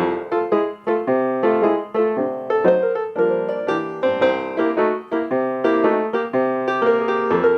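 Solo piano playing a quick, bouncy accompaniment of short detached notes and chords, several a second.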